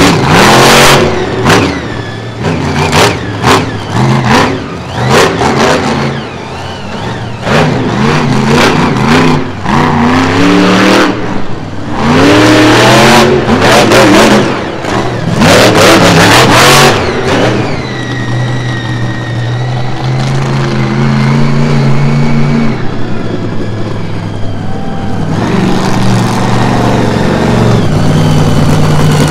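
Monster truck engine revving hard in repeated rising and falling bursts, then running at a steadier, lower note through the second half.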